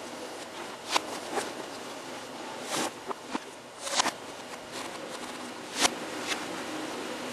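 Footsteps and shoe stamps of a person moving about: about eight irregular sharp taps and knocks, the loudest about four and six seconds in, over a steady hiss.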